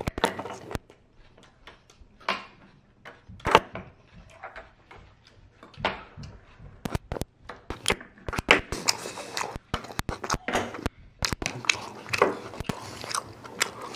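Close-up chewing and biting of a tortilla wrap filled with steak, kimchi, mashed potato and pepper: wet mouth noises broken by irregular sharp clicks, with no steady rhythm.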